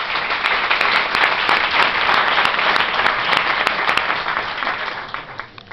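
Audience applauding: dense, steady clapping from many hands that fades away near the end.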